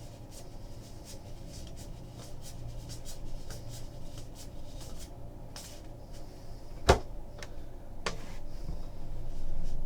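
Card boxes and packaging being handled and opened on a table: scattered light clicks and taps, one sharp knock about seven seconds in and a smaller one about a second later.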